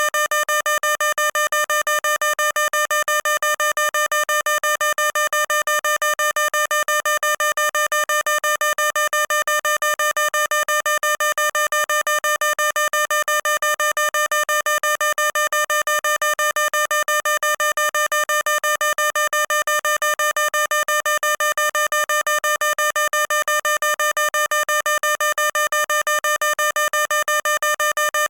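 Electronic fire alarm sounding: a loud, steady tone pulsing rapidly and evenly, many times a second, without a break.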